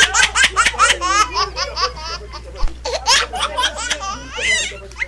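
Loud, high-pitched laughter in quick repeated peals, in two runs, the second starting about three seconds in.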